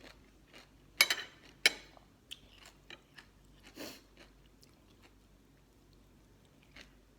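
Close-up eating sounds of pickled crab and green mango salad: two sharp crunches about a second in, another near four seconds, with small clicks of chewing between.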